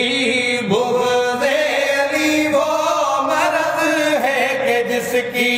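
A group of men singing an unaccompanied Urdu devotional song in praise of Ali, drawing out long, wavering notes between the lines of the verse.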